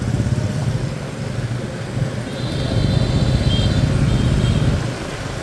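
Street traffic: motor vehicle engines running, one growing louder as it passes from about two seconds in and falling away near the end.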